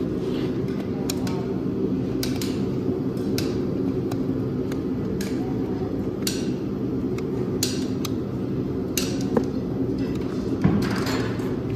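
Hoof nippers biting through an overgrown horse hoof wall: a series of sharp, irregular cracks about a second apart, over a steady low background rumble.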